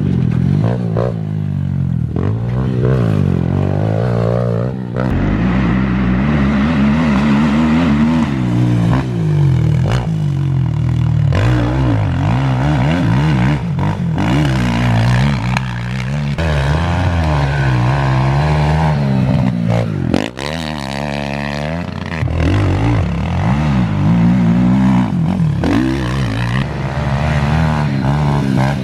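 Pit bike engine revving up and down as the bike is ridden hard, its pitch climbing and falling over and over. About twenty seconds in the engine chops off the throttle briefly, then picks up again.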